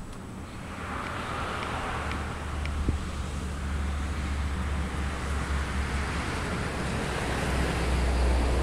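Wind buffeting the camera's microphone: a steady low rumble under a rushing hiss, growing stronger a couple of seconds in.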